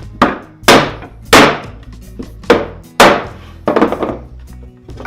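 Hammer blows on wood, six strikes in an uneven rhythm, driving fasteners into a warped wooden beehive bottom board, each ringing briefly.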